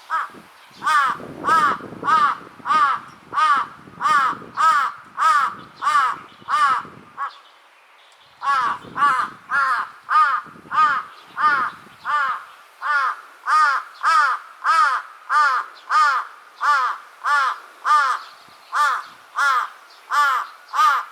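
Large-billed crow giving a long, even run of caws at about two a second, with a pause of about a second partway through. The uploader labels the calling as a threat (威嚇).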